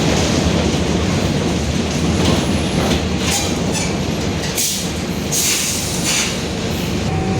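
Inside a Mercedes-Benz OF-1721 BlueTec 5 city bus with a Marcopolo Torino S body, under way: the engine and drivetrain run with a steady low drone and the differential growls, over road noise. Short high-pitched rattles and squeaks from the body come through several times in the middle.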